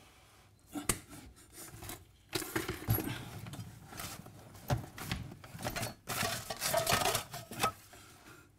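Hand groping across the floor under a bed: irregular scraping, rustling and small clinks and knocks of things being touched and pushed about, with one sharp knock about a second in.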